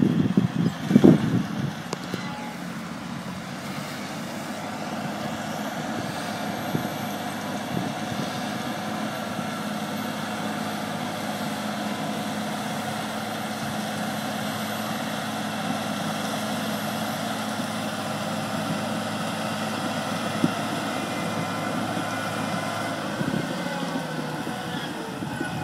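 Caterpillar 120M motor grader's diesel engine running steadily as it moves along grading gravel with its blade down. A few loud low thuds come in the first two seconds.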